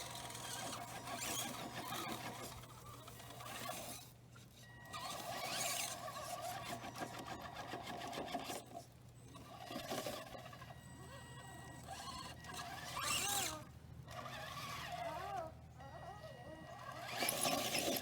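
Electric motor and drivetrain of a 1/10-scale RC crawler truck whining in bursts, its pitch rising and falling with the throttle, with stretches of scrabbling noise between.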